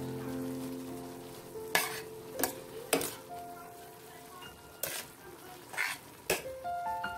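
Pancit canton noodles being stirred and tossed in a steel pot, about seven short scraping strokes at irregular intervals. Soft background music of held notes plays under them.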